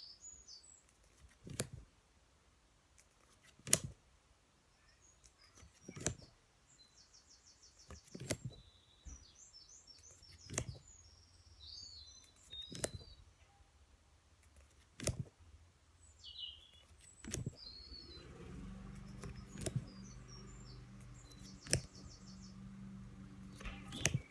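A sharp click about every two seconds: the phonics flashcards being flipped over one after another. Birds chirp faintly in the background, and a low steady hum comes in about three-quarters of the way through.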